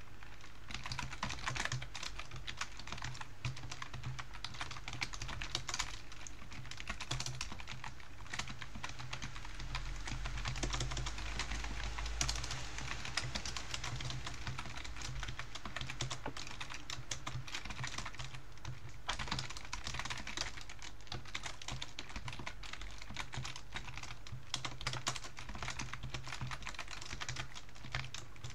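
Computer keyboard being typed on quickly and continuously, a steady stream of key clicks as C++ code is written.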